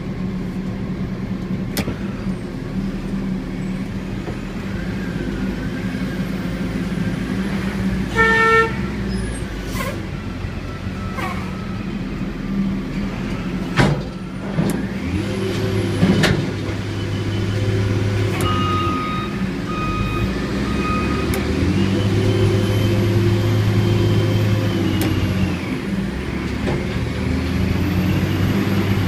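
Diesel engine of a container-handling machine running steadily. It revs up twice in the second half, each time with a higher whine over it. A short beep sounds about a third of the way in, and a couple of sharp knocks come near the middle.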